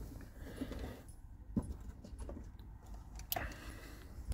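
Handling noise inside a car: a few light clicks and knocks over faint rustling, the sharpest about three seconds in.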